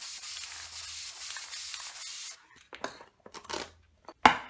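Aerosol can of black spray paint hissing steadily through a stencil for about two and a half seconds, then stopping. After that come short rustling sounds and one louder sharp noise near the end, as the taped stencil is pulled off.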